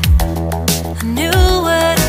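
Background pop music with a steady beat: a deep kick drum about every two-thirds of a second over a held bass note, with a melody line gliding up and down in the second half.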